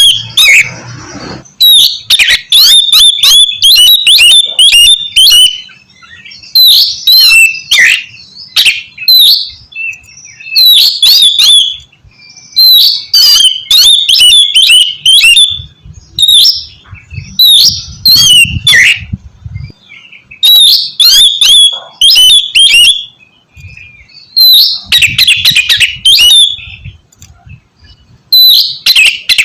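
Oriental magpie-robin (kacer) singing loudly in bursts of one to three seconds with short pauses between them. Each burst is a rapid run of sharp rasping notes and quick whistles.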